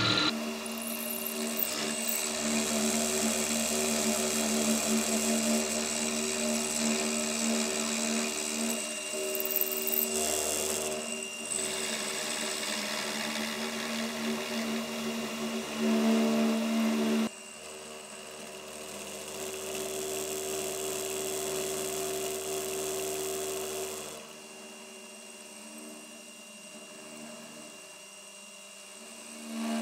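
Milling machine spindle running with a coated end mill cutting a slot in a metal bar: a steady motor hum with a cutting hiss. The sound drops in level partway through and again later.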